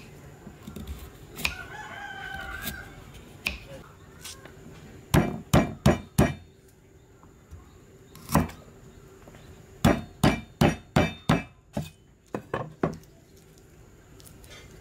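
Cleaver chopping garlic on a thick wooden chopping board: a run of four hard knocks about five seconds in, a single knock, then a quick run of about six and three more. A rooster crows briefly about two seconds in, quieter than the chops.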